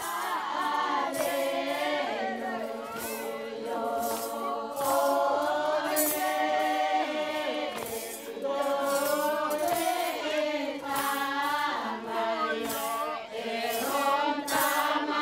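A group of Abui villagers singing a traditional chant together, many voices holding long, wavering notes over a steady low note, with a sharp click about once a second.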